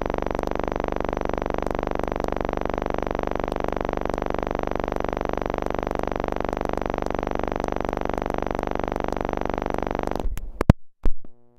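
Steady hum and hiss of an old 16 mm film's soundtrack, with many fixed pitches and no change in level. About ten seconds in it cuts off into a few sharp clicks.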